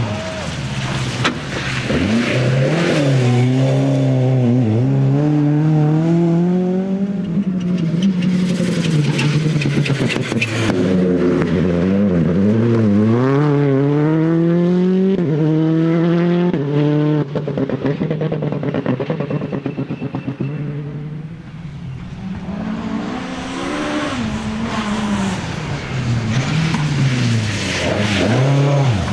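Rally car engines at full throttle on a stage, revving hard with the pitch climbing and dropping sharply again and again through gear changes and lifts. After a short lull about 21 seconds in, another car's engine builds up.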